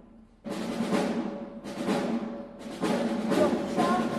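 Deep booms from a war film soundtrack playing on the exhibit's screens, one about every second, each fading away over about half a second.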